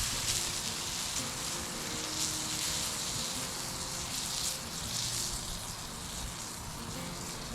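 Steak sizzling on a grill grate over a small campfire, a steady hiss.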